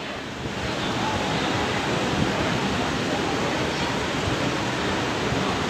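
Steady rushing of electric fans blowing air, with faint voices in the background.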